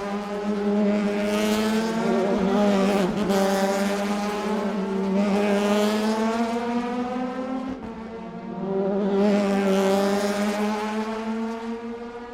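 Indy race cars passing by in a group, engines whining at high revs. The sound swells about three times as cars pass and fades near the end.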